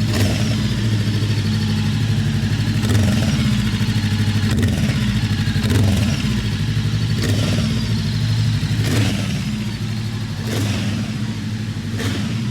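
Voge CU525 motorcycle's parallel-twin engine running steadily near idle, with a bit of a roar and a few brief rises every second or two.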